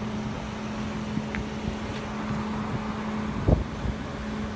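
Roadside vehicle noise and wind on a phone microphone, under a steady low hum, with a single thump about three and a half seconds in.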